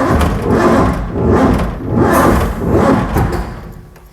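1970 Mustang's carbureted engine running unevenly, swelling and sagging about every three-quarters of a second, then dying away near the end as it stalls. The owner suspects too much ignition timing advance.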